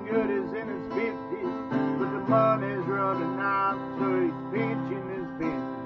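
Acoustic guitar playing a country-style tune, with bending single notes over chords and lower notes joining in about two seconds in.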